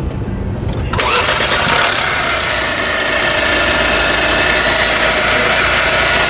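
Mercedes-Benz engine cranked by the starter, catching about a second in and then running steadily, after repair of the persistent engine noise that it was brought in for.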